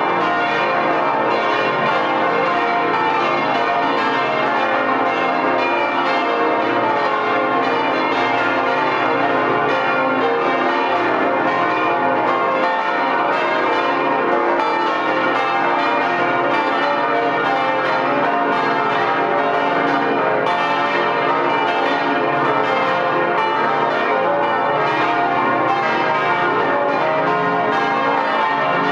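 Full peal of about twenty swinging church bells of the Stiftskirche Herrenberg, heard from inside the belfry close to the bells. Their strikes overlap into a steady, dense ringing with no pause.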